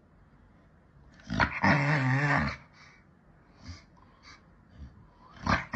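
A pit bull-type dog growling, a drawn-out grumble with a wavering pitch about a second and a half in, and another starting near the end.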